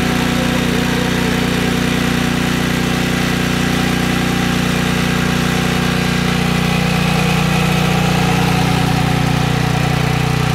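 Briggs & Stratton Storm Responder portable generator engine running steadily on natural gas through a tri-fuel conversion kit, a few seconds after being pull-started.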